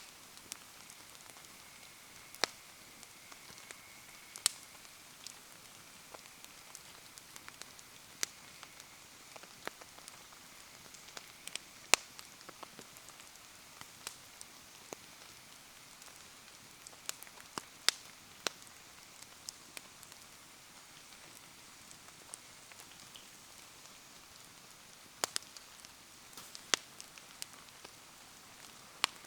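Wood fire crackling in the rain: irregular sharp pops and snaps from the burning wood over a steady hiss of rain falling.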